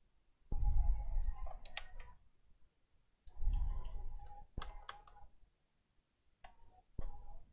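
Sony laptop being handled and opened on a workbench: plastic clicks and knocks in three short bursts of activity, each with a brief steady whir, broken by pauses.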